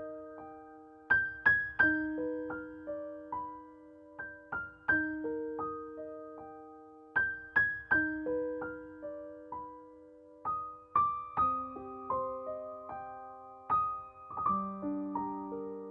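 Background piano music: a slow, gentle melody of single struck notes, each left to ring and fade, in a phrase that repeats every few seconds.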